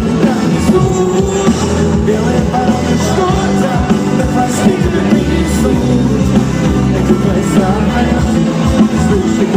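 Live rock band playing loudly, with drum hits and guitar.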